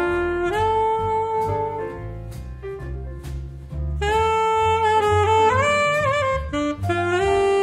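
Alto saxophone playing the melody of a jazz standard over accompaniment with a low bass line, in long held notes with slight bends. It goes softer in the middle and comes back in strongly about four seconds in.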